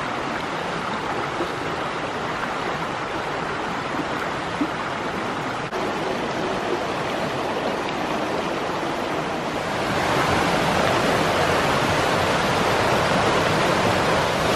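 Rushing water of a shallow rocky creek tumbling over stones, a steady rush that grows louder about ten seconds in.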